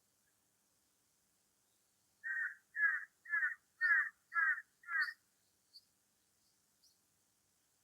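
A bird calling six times in a quick, even series, about two calls a second, each call short and clear with a slight bend in pitch. A few faint, high chirps from a small bird follow near the end.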